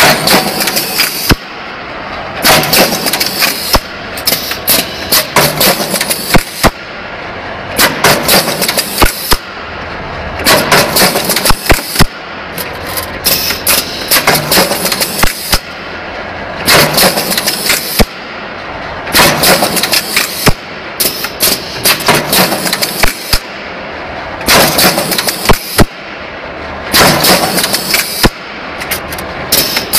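NC punching machine with an automatic sheet feeder punching holes in metal sheet. Loud bursts of noise lasting a second or two come every two to three seconds, with sharp single strokes between them.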